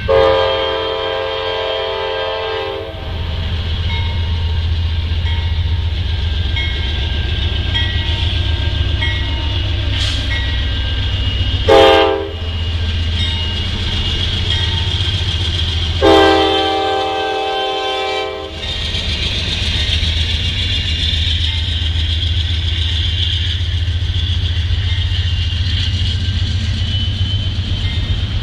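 Diesel locomotive's multi-chime air horn sounding for a grade crossing: a long blast, a short one about twelve seconds in, then another long blast, over the steady low rumble of the approaching train. Near the end the train passes through the crossing with steady wheel and rail noise.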